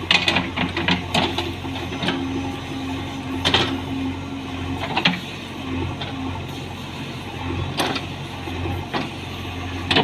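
JCB 3DX backhoe loader's diesel engine running steadily under digging load, with sharp knocks as the backhoe bucket works soil and stones: several in the first second, then single knocks every second or two.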